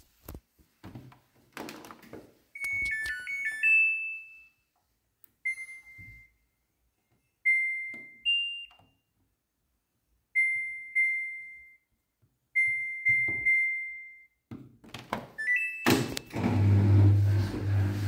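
Samsung front-loading washing machine control panel: clicks from the program dial, a short rising jingle, then single electronic beeps a second or two apart as buttons are pressed. Near the end comes another quick jingle with clicks as the cycle is started, then a steady low hum with a hiss as the machine begins running.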